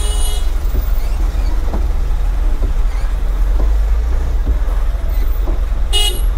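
Steady low rumble of a small diesel goods truck's engine, heard from inside the cab as it creeps slowly through a toll-plaza queue. A brief sharp burst comes near the end.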